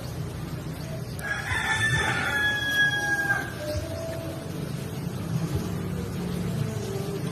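A rooster crowing once, starting about a second in and lasting about two seconds, over a steady low rumble.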